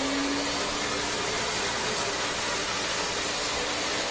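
A motor-driven household appliance running steadily: a continuous rushing hiss with a low motor hum that rises slightly right at the start, then holds steady.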